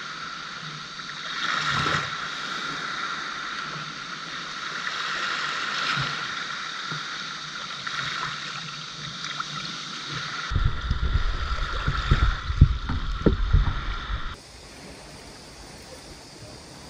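Small waves lapping and washing up onto a coarse-sand beach, swelling every few seconds. From about ten seconds in, wind rumbles on the microphone.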